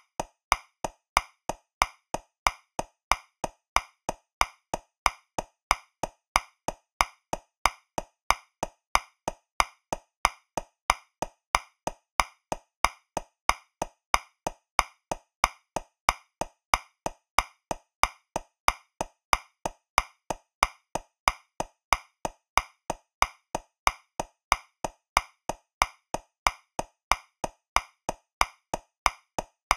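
Metronome clicking at 185 beats per minute, about three clicks a second, in 2/4 time with every other click accented and louder.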